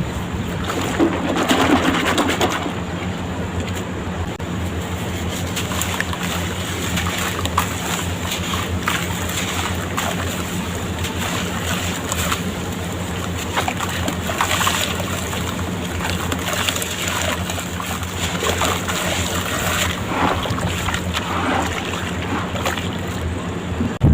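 Sand-cement blocks crumbling in water: a continuous fizzing crackle of many small clicks and ticks, with a steady low hum underneath.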